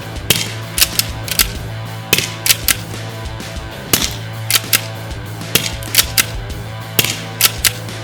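Music with a steady sustained drone and sharp crack-like hits that come in regular groups of two or three, about every second and a half.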